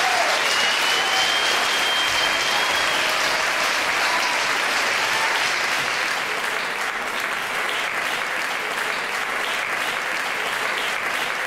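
Audience applause: many people clapping steadily, with a single high held tone over it for a few seconds at the start. In the second half the clapping thins and individual claps stand out.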